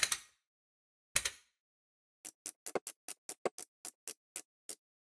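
Hand ratchet turning the axle nut to pull a new BMW E90 rear drive shaft into the hub: two sharp knocks, then a run of quick clicks at about five a second.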